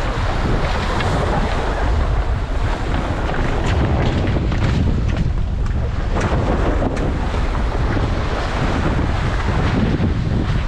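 Heavy wind buffeting the microphone over the rush of choppy waves against a Tornado catamaran's hulls, with scattered sharp splashes.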